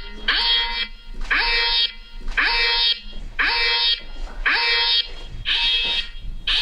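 Home security alarm going off in repeated pulses, about one a second, each starting with a short upward swoop into a steady tone. The alarm has been triggered by an intruder opening the door and entering.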